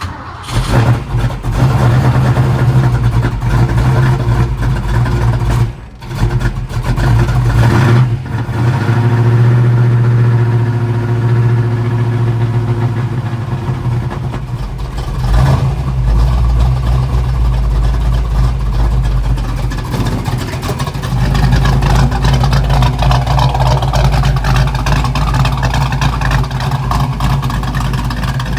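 Ford 289 V8 firing up and running loud and steady at a raised speed, as for a new camshaft's break-in run, with one brief drop about six seconds in.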